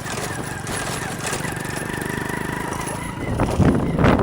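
Motorcycle engine running steadily while being ridden, heard from the rider's seat. About three seconds in, a louder rushing noise builds over it.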